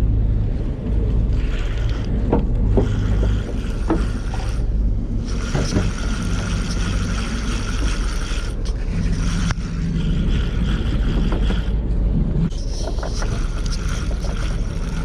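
Steady low rumble of a charter fishing boat with wind on the microphone. A faint whine comes and goes in four spells of a few seconds each, and there are a few light knocks.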